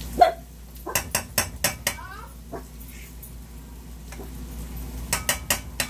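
A cooking utensil knocking against a pan of frying rice: a clunk at the start, a quick run of about five sharp taps about a second in, and three or four more near the end.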